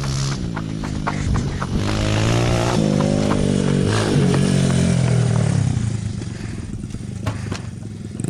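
Dirt bike engine revving up and down as it is ridden, its pitch rising and falling several times, then dropping lower and quieter about six seconds in. A few sharp knocks are heard along with it.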